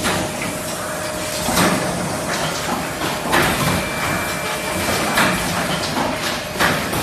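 Automatic cup fill-and-seal machine running: a steady machine noise broken by a sharp stroke about every one and a half to two seconds, the rhythm of its lidding cycle.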